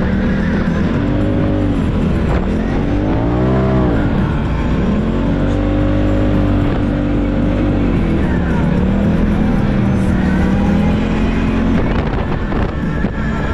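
Side-by-side UTV engine revving up and down with the throttle while driving over sand dunes, its pitch rising and falling several times over a steady rushing noise.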